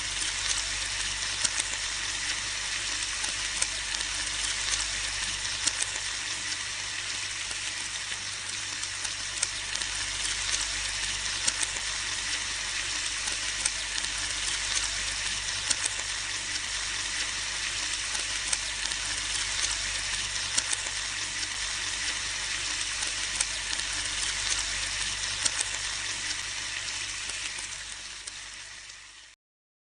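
Bacon frying in a pan: a steady sizzle with frequent sharp crackles and pops of spitting fat, fading and stopping near the end.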